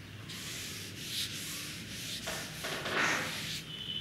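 Chalk scratching on a chalkboard in several strokes as something is written on the board, growing louder near the end.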